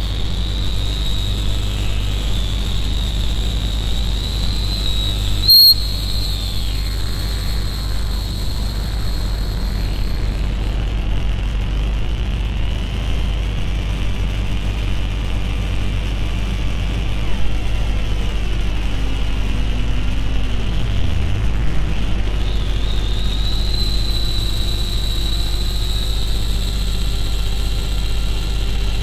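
Lumanoise v4 noise synthesizer playing a dense electronic drone through a Memory Man delay and plate reverb: a steady low rumble under a high whistling tone, with slow filter sweeps. About five and a half seconds in there is a brief loud burst. Past the middle, one sweep glides down from mid pitch to a low one over a few seconds.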